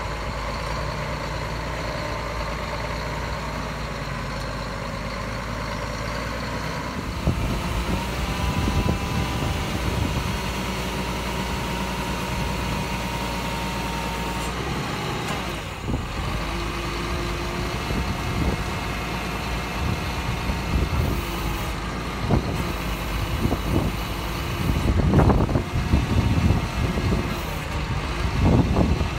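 Scania 124G hooklift truck's diesel engine idling, then the hydraulic hook arm working, with a steady hydraulic whine for several seconds. A few sharp metallic knocks and clanks come near the end.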